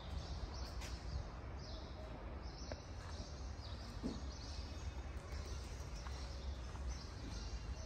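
Outdoor background noise: a steady low rumble with short high chirps repeating throughout.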